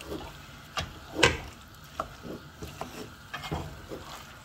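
A wooden spoon stirring chicken and chopped vegetables in a stone-coated pot, scraping and knocking irregularly against the pan, with the loudest knock about a second in, while the food fries in hot oil.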